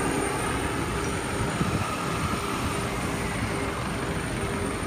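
Jet engine running steadily on the ground, a thin high whine over a broad rush of noise.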